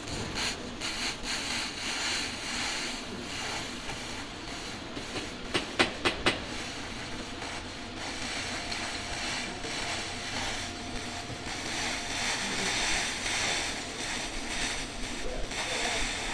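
200 W pulsed laser cleaning machine ablating body putty off a car panel: a steady rough hiss with fine ticks as the beam scans. Three sharp clicks come close together about six seconds in.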